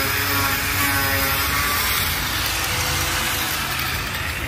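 Handheld electric power tool running under load while cutting wood, its motor whine wavering a little over a continuous rasping noise.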